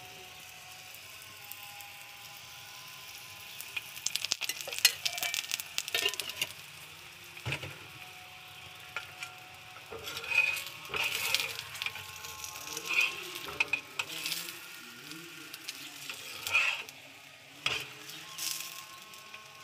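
A wheat-flour pudla sizzling in oil on an iron tawa, with a flat metal spatula scraping and clinking against the pan again and again as it is pressed and turned.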